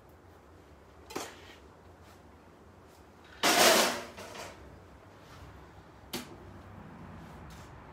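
Kitchen handling noises as things are fetched from under the work table: a light knock about a second in, a louder scrape or rustle lasting about half a second a little after three seconds, and another knock just after six seconds.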